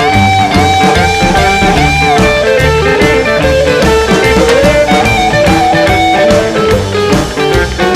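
Instrumental break of a rhythm and blues song: an electric guitar plays a lead line over bass and drums. It opens with one high note played four times in a row, each bent up into pitch.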